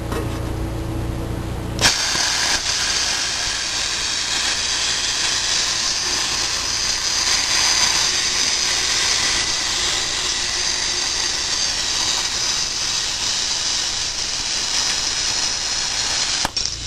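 Lotos Cut40D air plasma cutter, set to 40 amps, cutting 1/8-inch aluminium tread plate. The arc fires about two seconds in with a steady hiss of the plasma jet, which holds for about fifteen seconds and cuts off shortly before the end.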